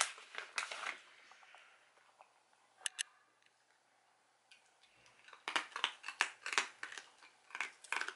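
A dachshund crunching hard dental treats: quick crisp crunches for the first second, a single one about three seconds in, then rapid crunching again from about five and a half seconds on.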